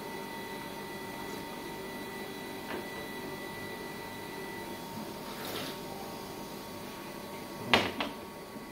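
Steady machine hum with a few fixed tones, from an unseen small appliance. Near the end a ceramic mug is set down with a sharp knock on a glass table top.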